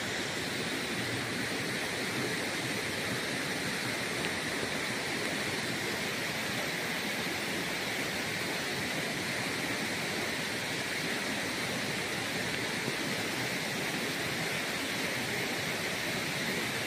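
Steady, even rush of water from a waterfall and stream, with rain falling on the water.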